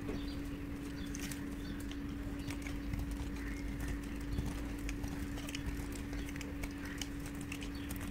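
Dry bar soap being cut with a utility knife blade and broken apart by hand: irregular crisp cracks and crunches as chunks snap off, over a steady low hum.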